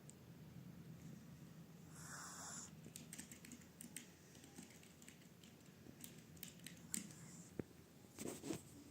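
Faint sounds of a sleeping shih tzu puppy: a soft snore about two seconds in and another near the end, over a low steady hum and scattered small clicks.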